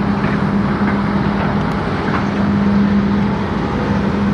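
An engine running steadily with a constant low hum, over a dense rushing noise.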